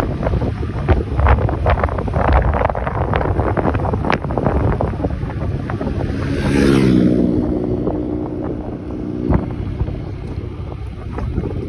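Wind buffeting the microphone of a moving motor scooter, with sharp gusts through the first half. About six seconds in, another motor scooter's engine passes close by, its whine rising to a peak and dropping in pitch as it goes past.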